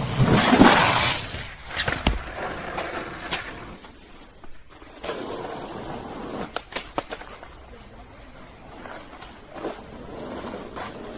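Skateboard sounds: a loud rush of wheels rolling or grinding at the start, then sharp clacks of the board hitting the ground. After a brief gap, more rolling with a few quick clacks.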